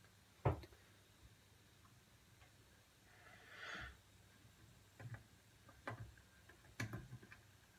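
Quiet handling of a plastic LED disco bulb held in the hand: a few short, sharp clicks and taps, the loudest about half a second in and three more near the end, with a short soft hiss around the middle.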